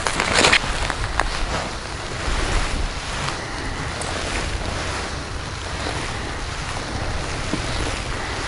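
Wind buffeting the microphone on open ice, a steady rushing noise, with a crunch of snow underfoot in the first moment.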